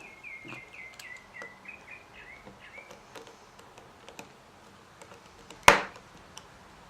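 A bird chirps a quick run of short, falling notes for about three seconds. Faint ticks and clicks come from work on an extension cord plug's terminals, and one sharp click a little before the end is the loudest sound.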